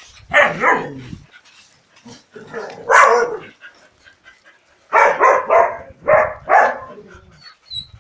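A dog barking in short bursts: a couple of barks near the start, one longer bark about three seconds in, then a quick run of five barks in the second half.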